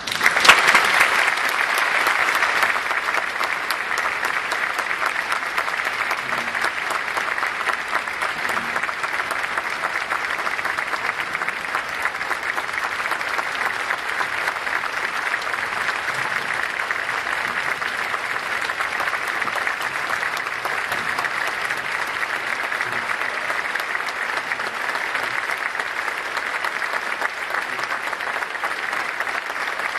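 Concert hall audience applauding, starting all at once, loudest in the first couple of seconds and then holding steady and dense.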